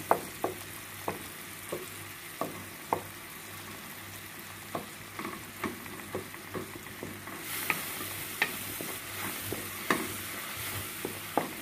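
Banana pieces frying and sizzling in fat in an aluminium pan, with a wooden spatula scraping and tapping the pan irregularly as they are mashed. The sizzle grows louder about seven and a half seconds in.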